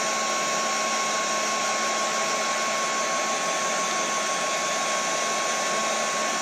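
Small handheld heat gun blowing steadily, a constant rush of hot air with a thin steady whine, as it shrinks heat-shrink tubing over soldered wire joints.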